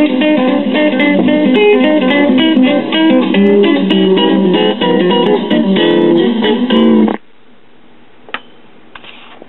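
Music from a 33 RPM LP record playing through the 1966 talking book record player's tube amplifier and speaker. The music cuts off suddenly about seven seconds in, leaving a faint hiss with a single click.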